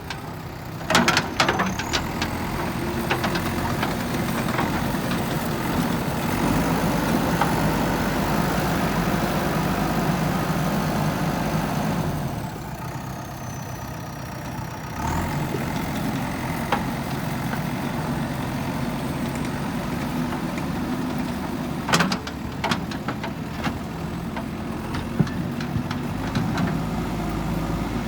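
JCB backhoe loader's diesel engine running steadily. Its sound drops for a few seconds about midway, with sharp clanks about a second in and again near the end.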